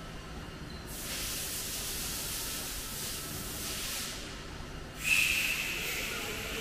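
Compressed air hissing from the horizontal mixer's pneumatic air system in two bursts, over a low steady hum. The first runs about three seconds; the second starts suddenly, louder, with a high whistle in it.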